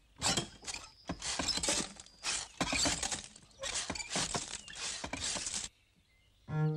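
Sand and gravel gushing from a hand pump's spout into a metal watering can and onto the ground: a gritty clatter in repeated surges that stops about six seconds in. Music begins near the end.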